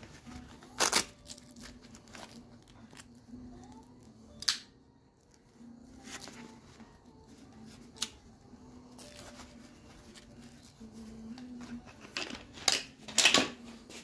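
Gloved hands rummaging through a packed tool bag, shifting tools and pulling out fabric pouches: short rustles and scrapes of canvas and tools, with quieter handling between them and the loudest few near the end.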